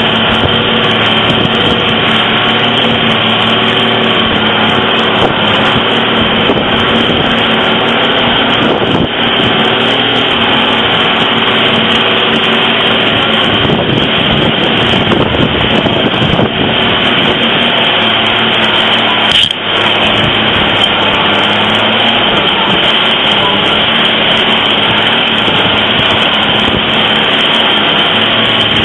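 A vehicle's engine running, with tyre and body noise from a rough gravel track, heard from inside the vehicle.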